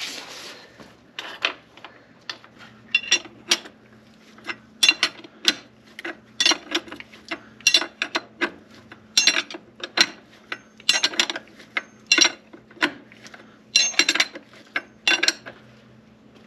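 A wrench working a motorcycle's rear chain adjuster while chain tension is set and the wheel squared: irregular sharp metallic clicks in short clusters, a few a second, over a faint steady hum.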